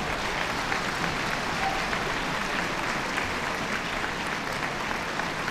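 Sustained applause from a theatre audience and the cast, a steady dense clapping that neither builds nor fades.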